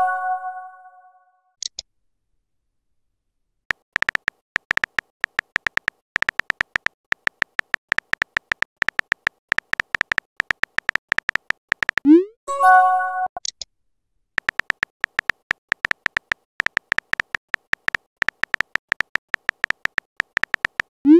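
Chat app sounds: a rapid run of short synthetic keyboard clicks as a message is typed, broken about twelve seconds in by a quick rising swoop and a bright few-note chime as a message bubble is sent, after which the clicks start again. A similar chime is fading out at the very start.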